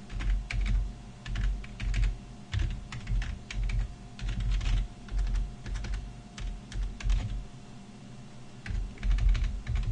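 Typing on a computer keyboard: an irregular run of keystrokes, with a short lull about eight seconds in.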